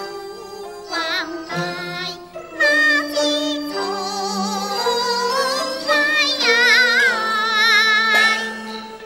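Female Teochew opera singer singing a slow aria line, drawing out long wavering notes with heavy vibrato, over instrumental accompaniment holding steady notes beneath.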